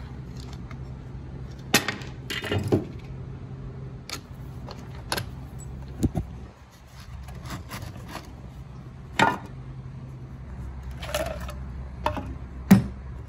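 Scattered clicks, taps and clatter of the hard plastic housing of an Echo CBP-58V20 58 V lithium-ion battery pack being handled and taken apart, over a steady low hum.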